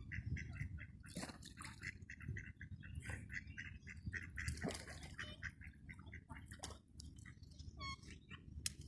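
Black swan chirping: a rapid run of short, high-pitched notes, several a second, with a few harsher, noisier sounds among them.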